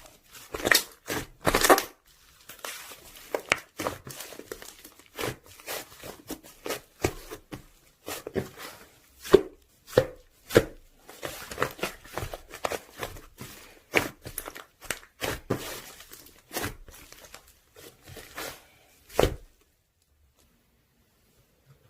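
Slime being pressed, folded and stretched by hand: irregular wet clicks, pops and crackles, stopping abruptly about nineteen seconds in.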